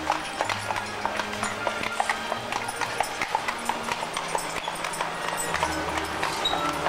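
Hooves of a pair of draft horses clip-clopping at a walk on a paved street as they pull a wagon past, a quick run of sharp clicks.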